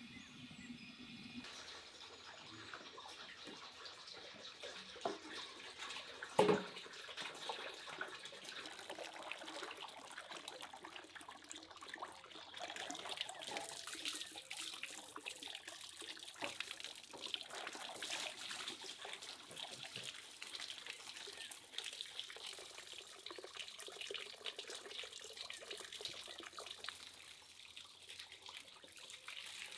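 Tap water running into a steel basin of dogwood berries, a steady splashing trickle that grows a little louder about twelve seconds in. A single sharp knock about six seconds in is the loudest sound.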